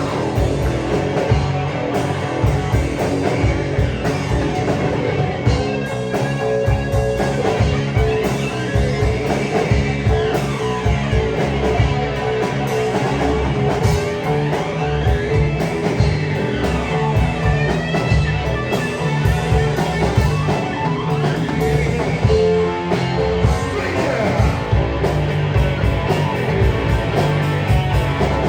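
A rock band playing live: electric guitar, bass and drums in steady, dense playing with no break.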